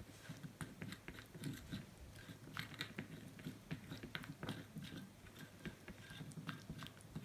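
Small spoon stirring a thick yogurt-and-honey paste in a ceramic bowl: faint, irregular clicks and taps as the spoon knocks and scrapes against the bowl.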